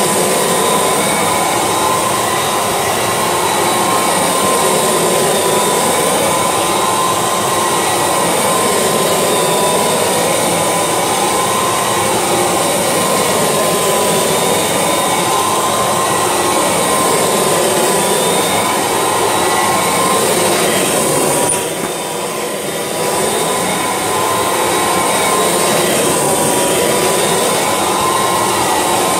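Kirby Legend II upright vacuum cleaner running steadily with a constant whine while it is pushed back and forth over a carpet mat, deep-cleaning carpet-powder residue out of the pile. The sound swells and eases with each stroke, about every two seconds, and goes briefly quieter about two-thirds of the way through.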